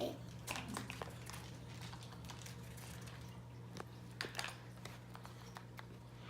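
Light, scattered clicks and rustles of small toys and their plastic packaging being handled, over a steady low hum.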